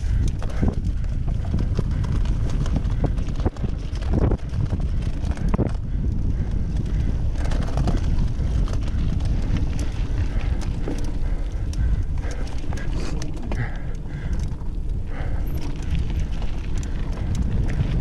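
Mountain bike ridden hard over a rough dirt trail: a steady rumble of wind and tyres on the action camera's microphone, with many quick rattles and clicks from the bike bouncing over the ground.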